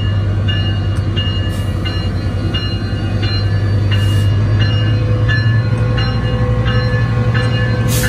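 Metrolink F125 diesel locomotive standing at the platform with its engine running in a steady low hum, its bell ringing in even strokes almost twice a second. The engine hum grows louder about five seconds in as the locomotive is approached.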